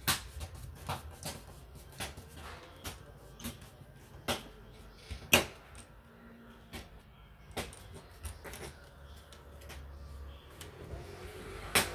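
Plastic screen bezel of a Casper C600 laptop being pressed into place, its clips clicking and snapping in one after another. The clicks come irregularly, with a few sharper snaps about four and five seconds in and one near the end.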